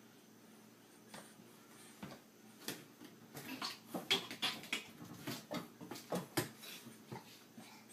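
An irregular run of light clicks and knocks of small hard objects, several a second, starting about a second in and dying away near the end.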